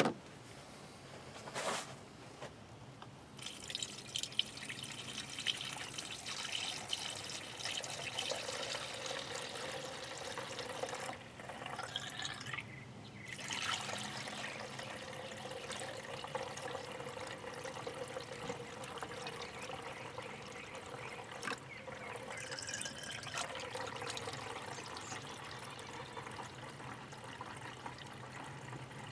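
Liquid pouring and trickling steadily, with a short break about twelve seconds in. It is most likely coolant being poured back into the car's cooling system after the thermostat replacement.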